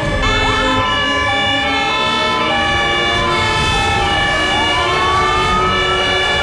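Fire engine siren sliding slowly upward in pitch from about four seconds in, with a short upward slide near the start, over background music of held chords.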